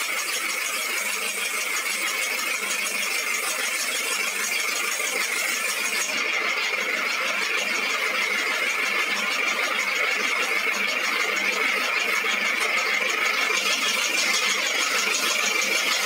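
High-pressure washer jet spraying water onto a motorcycle: a steady hiss of spray that grows slightly louder toward the end.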